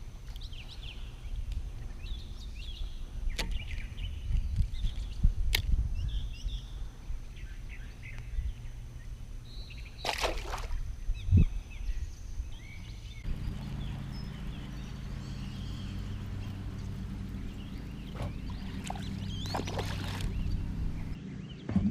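Outdoor waterside ambience: low wind rumble on the microphone with scattered bird chirps in the first few seconds and a couple of brief water sloshes. About halfway through, a steady low hum sets in and holds.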